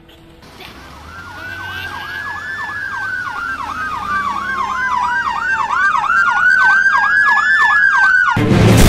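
Police car siren sounding a slow rising-and-falling wail together with a fast yelp of about three sweeps a second, growing steadily louder as if approaching. It cuts off suddenly near the end as loud music starts.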